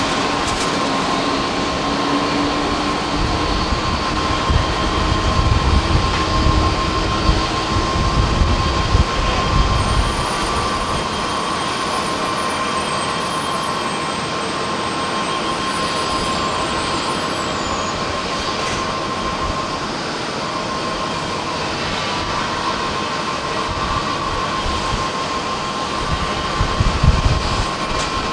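Jet airliner engines running at taxi power as a Boeing 787-9 rolls toward the runway: a steady high whine, with a lower tone rising slowly in the first few seconds. Low rumbling gusts of wind on the microphone come and go, strongest a few seconds in and near the end.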